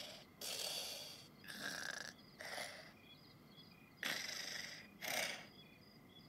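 Cartoon snoring sound effect of a sleeping game cat: soft breathy snores, drawn in and let out, in two rounds about three and a half seconds apart. Faint little chime tones sound between the rounds.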